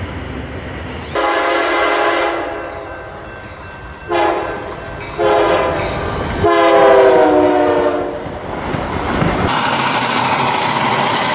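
A low train rumble for about a second, then a multi-chime train horn sounding four blasts: a long one, two short ones, and a longer, loudest one. Near the end an even rushing noise takes over.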